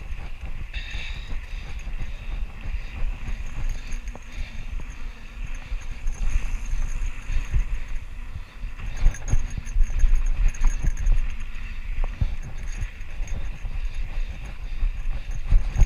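Mountain bike rolling fast over a rough, stony dirt trail: tyre noise and the rattle and knock of the bike over bumps, with wind rumble on the microphone.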